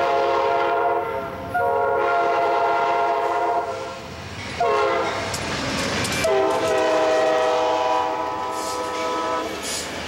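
Amtrak GE Genesis diesel locomotive's multi-chime air horn sounding the grade-crossing signal as the train passes at speed. A blast ends about a second in, then comes a long blast, a short one, and a final long one. Rolling wheel and car noise runs underneath.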